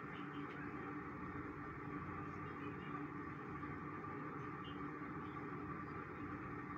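Steady faint hiss with a low hum from a pot of water heating on a stove, with small bubbles rising but not yet at a rolling boil.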